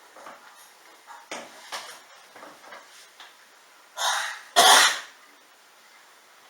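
A person coughing: a few small coughs, then two loud coughs in quick succession about four seconds in.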